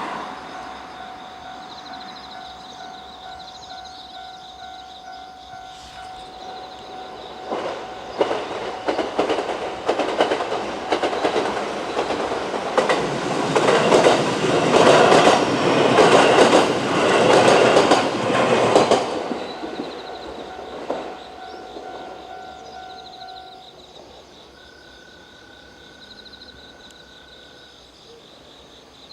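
A four-car electric multiple-unit train passing a level crossing, its wheels clacking over the rail joints as it goes by. It grows loud about a quarter of the way in and fades in the second half. The crossing's warning alarm rings steadily throughout.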